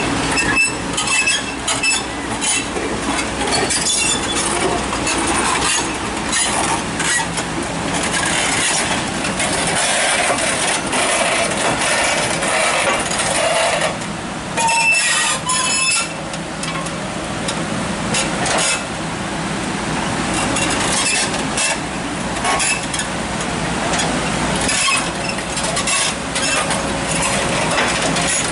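Kobelco SK130 hydraulic excavator running under load as it works its boom and bucket through mud and rock, with a steady engine note and repeated metallic clanks and knocks throughout.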